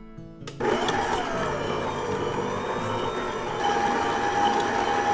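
Stand mixer motor switched on about half a second in and running steadily, its flat beater creaming butter and sugar in a steel bowl. A steady whine that dips in pitch just after start-up.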